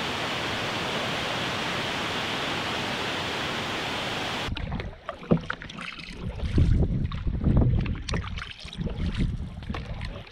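A steady rush of wind and water, then, from about halfway through, water splashing and lapping along the hull of a moving wooden cedar-strip canoe, with gusts of wind buffeting the microphone.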